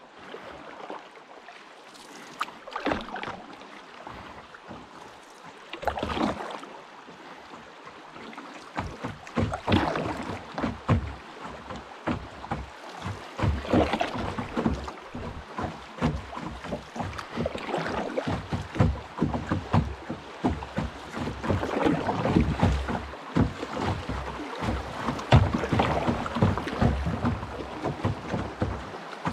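Water splashing and sloshing around a small paddled boat on a river, with irregular paddle splashes that become busier and louder about nine seconds in.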